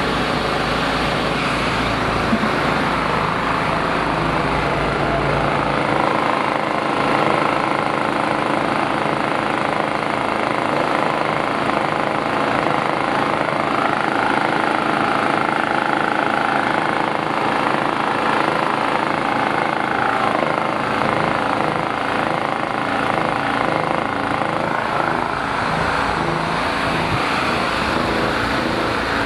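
Old-model Krisbow petrol generator running steadily, its carburettor cleaned after long disuse. The pitch shifts slightly partway through.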